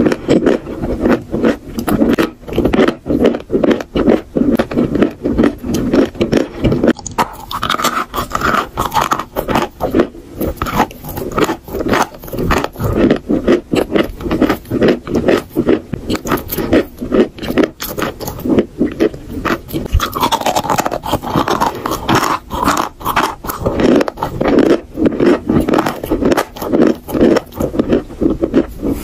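Dry chalk being bitten and chewed close to the microphone: a dense, continuous run of rapid crunching and crumbling.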